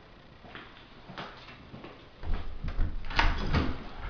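Interior door being opened and passed through, with a sharp latch click about three seconds in amid a couple of seconds of low thumps.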